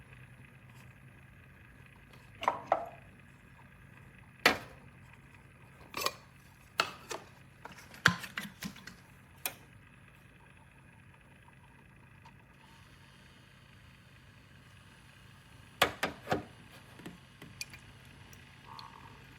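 Scattered sharp clicks and knocks of hard objects being handled, singly or in quick clusters of two or three, over a low steady hum.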